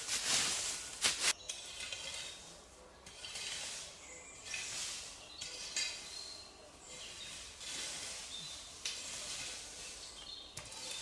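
Dry leaf litter on the forest floor being scraped and shoved aside in several bouts, first with a branch and later with a shovel. Small birds chirp between the scrapes.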